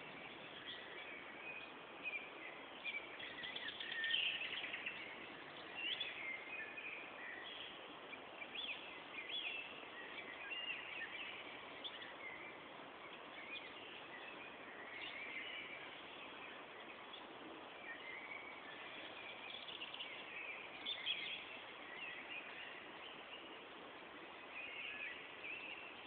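Songbirds singing in forest: many short, overlapping chirps and song phrases throughout, over a steady background hiss.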